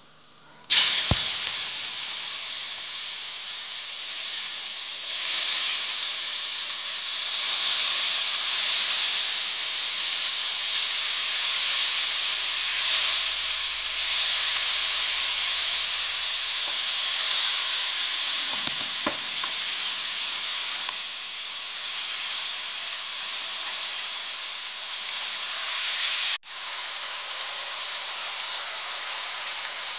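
Pork belly cubes going into hot oil in a wok, starting a loud, steady sizzle suddenly about a second in, while a spatula stirs them. The frying breaks off for an instant near the end.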